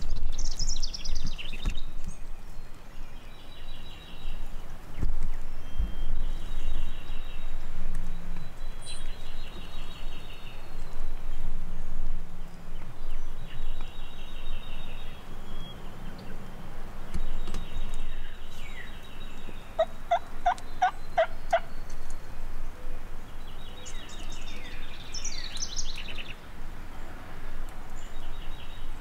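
Wild turkey gobbler gobbling over steady rain, with a quick run of about six short, evenly spaced notes about twenty seconds in.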